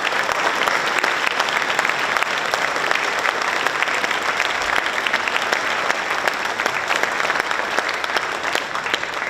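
A large audience applauding, with dense, steady clapping after the band's piece ends.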